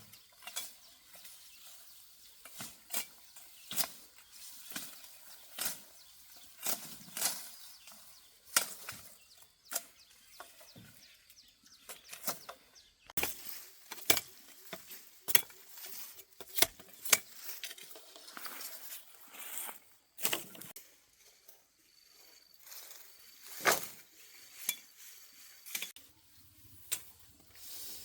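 A long series of sharp knocks or taps, irregularly spaced at roughly one or two a second.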